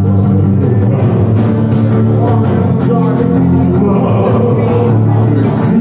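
A man singing an original song to his own strummed acoustic guitar, amplified through a small PA system.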